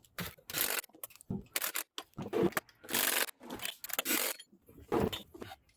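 A run of short, irregular scrapes, rubs and knocks, about ten in all with brief gaps: hand and tool work on the three-wheeler's parts.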